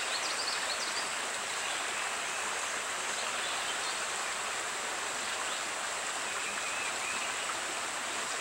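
Creek water flowing steadily over rocks, an even rushing with no change in level.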